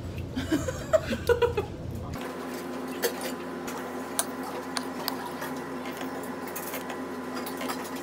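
A few short bursts of a woman's laughter, then a steady mechanical hum with a few sharp clinks of a metal spoon against steel bowls.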